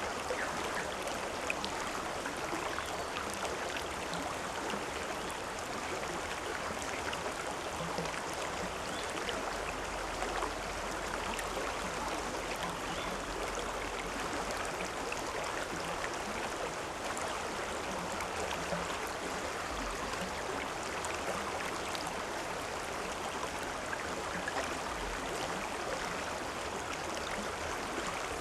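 River water flowing and splashing as a steady rush, with small drips and splashes scattered through it.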